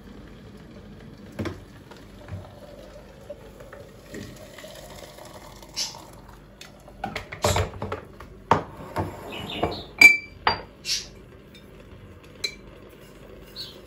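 Kitchen clatter of dishes and cutlery: scattered knocks and clinks, coming more often in the second half, with one ringing clink about ten seconds in that is the loudest.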